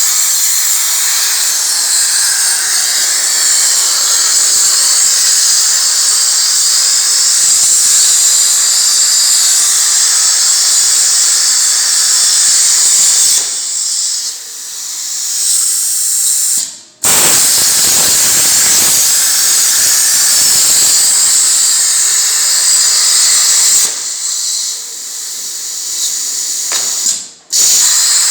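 Air plasma cutting torch on a CNC cutting table, its arc cutting sheet metal with a loud steady hiss. The hiss weakens twice and cuts off sharply for a moment at about 17 seconds and again near the end, then starts again, as the arc stops and restarts for the next cut.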